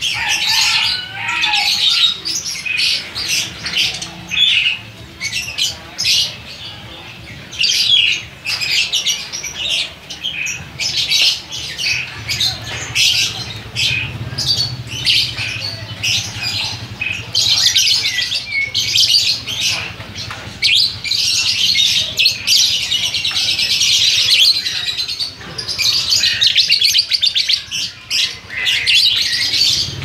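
A flock of caged lovebirds chirping and squawking together: a dense, overlapping chatter of shrill short calls that grows thicker in the second half.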